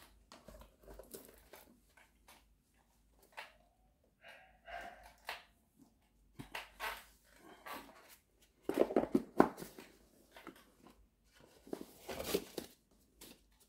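Faint scattered clicks, taps and rustles of wristwatches and their metal bracelets being handled and set down on a padded display, loudest in a cluster about nine seconds in and again near the end.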